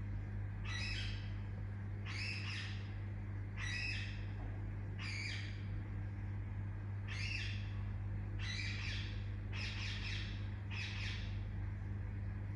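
Baby Indian ringneck parakeet giving short, harsh chirping calls, about eight in all, roughly one every second and a half, with a longer pause midway. A steady low hum runs underneath.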